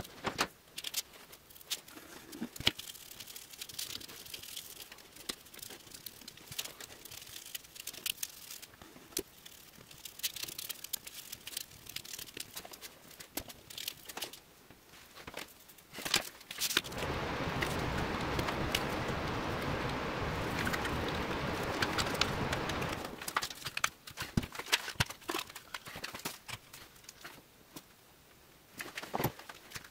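Scattered clicks, taps and scrapes of hands working with tools and parts on a workbench while glue is spread on a steel steering-wheel spoke ring and a wooden hoop. For about six seconds in the middle there is a steady rushing noise.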